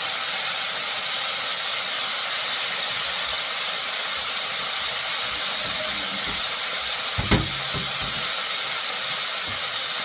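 Chicken livers deep-frying in peanut oil in an enamelled cast-iron Dutch oven: a steady, even sizzle of vigorously bubbling oil, which the cook says was too hot. One short thump about seven seconds in.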